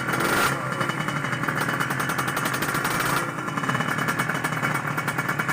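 Kawasaki Ninja motorcycle engine revving hard, heard as a loud, rapid rattle of evenly spaced exhaust pulses that eases slightly a little past the midpoint.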